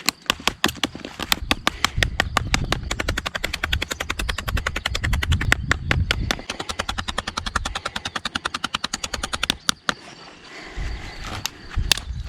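Victorinox Forester M Grip pocketknife being stabbed point-first again and again in a tip test: a fast run of sharp knocks, several a second, with a short pause near the end before a few more.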